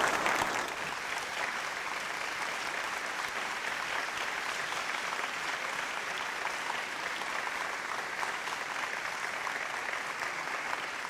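Audience applauding steadily, a little louder in the first moment.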